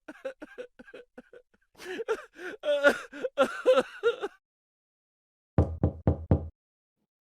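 Comic sound effects: a run of short, squeaky voice-like chirps, then a couple of seconds of rapid high, wavering voice-like sound, and near the end four quick low thuds.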